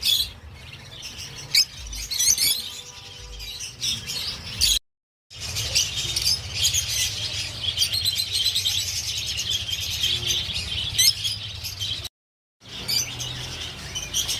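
Many small caged birds chirping and chattering at once in a dense, continuous twitter, with a steady low hum underneath. The sound drops out briefly twice.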